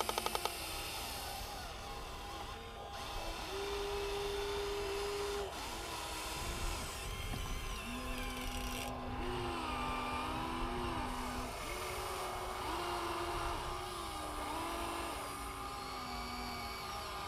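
Small electric motors of a Huina RC excavator whining as its boom, arm and bucket move. The pitch steps up and down, holds, and glides as each movement starts and stops.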